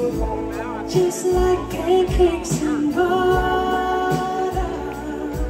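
A live pop band with singing, acoustic guitar, cello and drums, heard from the crowd. Drum hits keep the beat, and a long note is held from about three seconds in.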